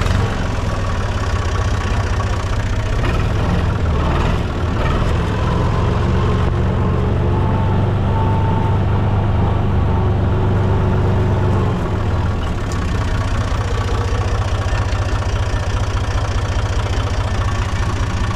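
Fiat Someca 500 tractor's diesel engine running steadily while ploughing, its low hum heavier for a few seconds midway.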